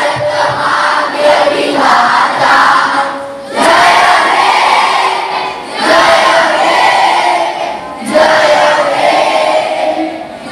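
A large group of voices singing together in unison, in about four phrases of roughly two seconds each with short breaths between them.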